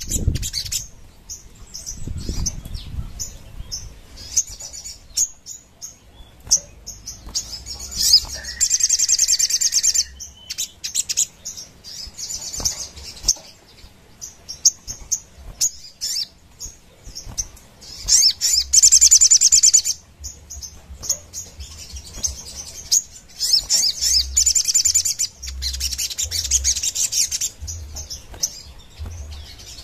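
Caged brown-throated sunbird (kolibri sogon) singing in fast, high-pitched rattling bursts of a couple of seconds each, with short chirps between.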